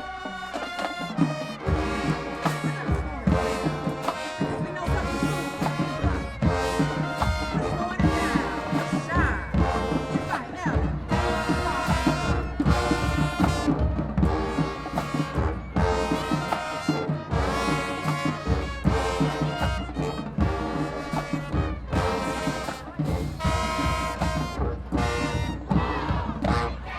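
Marching band brass section playing in loud, punchy repeated blasts over drums, starting just after a short pause.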